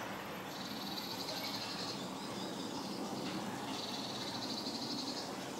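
A high, rapidly pulsing animal trill, heard twice for over a second each time, over faint steady background noise.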